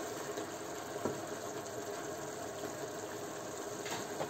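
Sofrito with wine simmering in a wide pan, a steady bubbling sizzle as the wine reduces and its alcohol cooks off, with a light knock about a second in.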